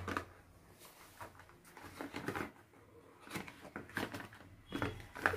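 Faint handling sounds of paint supplies on a tabletop: light taps and scrapes as a small cardboard box of glass paints is picked up and pulled open.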